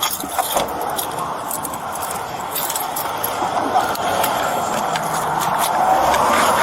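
Road traffic passing, swelling in loudness near the end, with scattered light clicks of handled gear.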